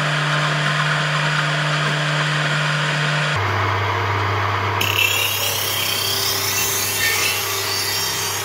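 Table saw running and cutting into the end grain of a wooden block fed upright past the blade, a steady motor hum under the harsh noise of the cut. The hum drops abruptly in pitch about three seconds in, and the cutting noise grows harsher about five seconds in.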